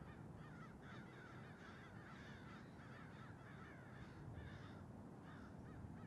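A flock of birds calling faintly, many short calls overlapping several times a second, thinning out near the end.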